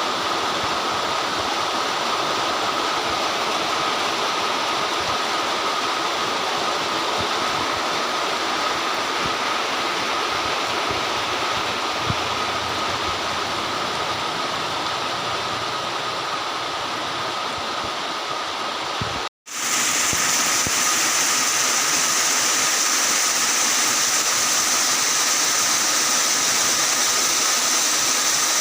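Heavy rain pouring down in a dense, steady rush. About two-thirds of the way through it cuts out for an instant and comes back brighter and hissier.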